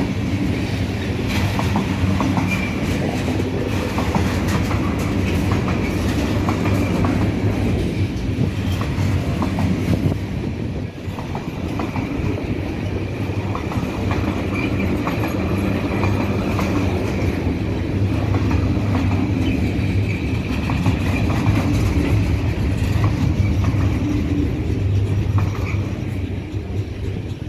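Container freight train of flat wagons rolling past: a steady rumble with the clickety-clack of wheels over rail joints and a thin, steady high-pitched ring over it, easing slightly near the end as the last wagons go by.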